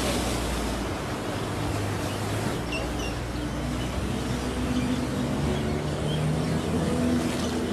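Seaside ambience: surf washing over a rocky shoreline under a steady hiss, with the low hum of road traffic.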